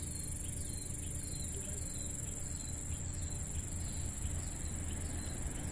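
Insects droning steadily at a high pitch in riverside greenery, with short chirps about twice a second over a low, steady rumble.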